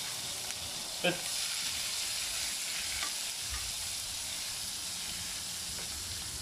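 Chunks of crayfish meat sizzling steadily as they sear in smoking-hot coconut oil in a frying pan. There are a couple of light knocks, about a second in and again near three seconds.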